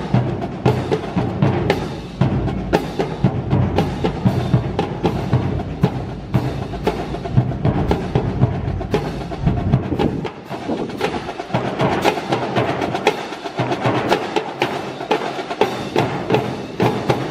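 Drum-led music over a stadium public-address system, with many sharp clacks through it.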